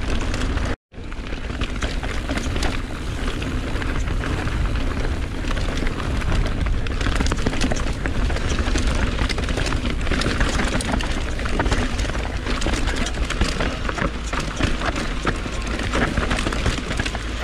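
Mountain bike riding fast down a rough trail, heard from a helmet- or chest-mounted action camera: wind buffets the microphone with a steady rumble, and tyres on dirt and the bike's chain and frame clatter with many short knocks. The sound cuts out briefly just under a second in.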